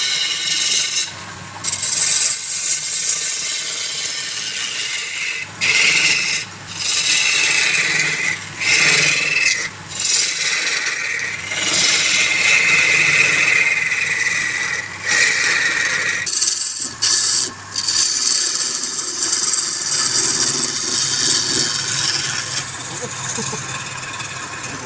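Wood being worked on a spinning lathe: a steady scraping rasp of a tool or abrasive against the turning wood. It comes in long stretches broken by a dozen or so brief pauses where the contact lifts off.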